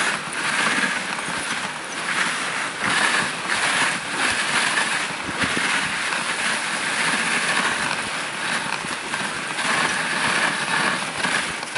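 Dog sled runners hissing and scraping steadily over packed snow as a husky team pulls the sled along at a slow pace.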